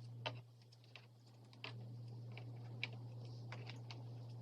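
Light, irregular clicks and taps of trading cards and the plastic display case being handled as cards are slid into its slots, over a low steady hum.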